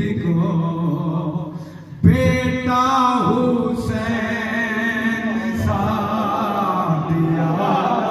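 A man singing unaccompanied devotional verse (a manqabat) into a microphone, holding long sung notes. It breaks off just before two seconds in and restarts abruptly, loud.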